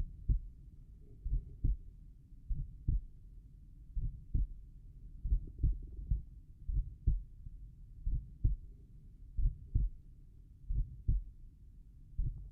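Slow human heartbeat heard through the chest over the tricuspid valve area: low, paired lub-dub thumps at a resting rate of about 44 beats a minute, each pair a fraction of a second apart.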